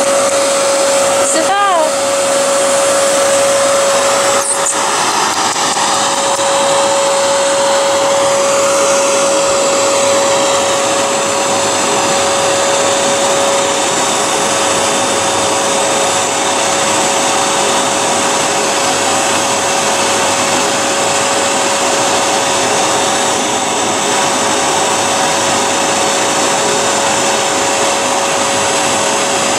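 Vacuum cleaner running steadily, its motor giving a constant even whine over a rushing airflow noise.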